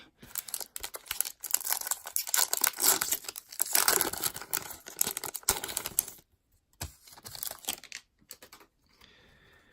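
Plastic wrapper of an Upper Deck hockey card pack crinkling and tearing as it is ripped open. About six seconds in, this gives way to a few light clicks and rustles of the cards being handled.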